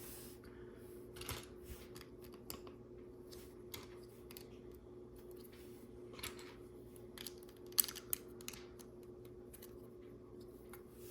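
Small LEGO plastic pieces being handled and pressed onto bricks: scattered light clicks and rustles, with two sharper clicks about eight seconds in.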